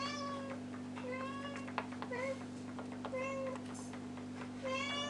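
A cat meowing five times, about once a second, each meow a short call that bends in pitch, over a steady low electrical hum.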